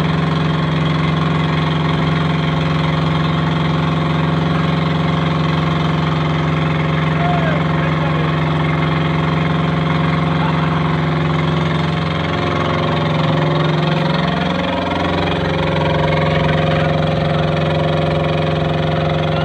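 Engine driving a curb-stone making machine, running steadily. About two-thirds of the way through its pitch sags briefly and then recovers.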